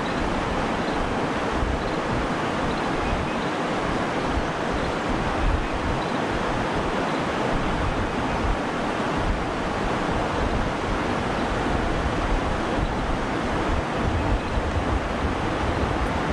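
Steady rush of river water running over shallow rocky riffles, with wind buffeting the microphone.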